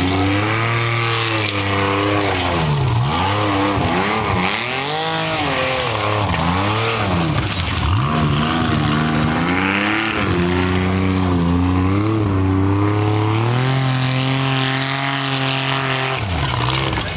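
Formula Offroad buggy's engine revving hard as it climbs a steep gravel hill. The revs rise and fall over and over, are then held high for a few seconds, and drop near the end.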